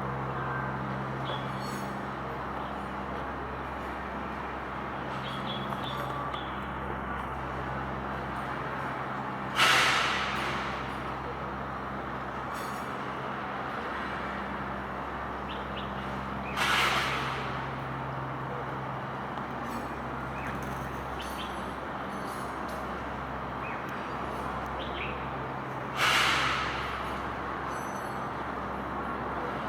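A steady low hum over a rushing background noise, broken three times by a sudden loud crash that fades away over about a second; faint bird chirps here and there.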